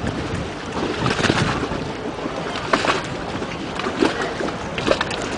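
Moored gondola rocking on the water: water lapping and slapping against the hull, with occasional sharp knocks.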